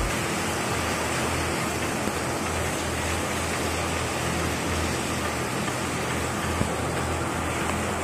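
Steady rushing and splashing of water from a fire truck's hose washing down a flooded concrete courtyard, with the low, steady hum of the fire truck's engine running underneath.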